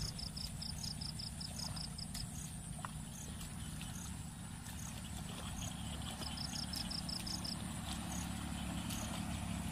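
Insects chirping: two rapid trains of high chirps, one at the start and one about six seconds in, with single high pips repeating about every half second. A steady low rumble runs underneath.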